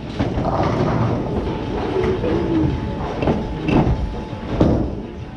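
Bowling alley noise: bowling balls rolling on the wooden lanes make a steady low rumble. A few sharp knocks come in the second half, around the time a ball is released onto the lane.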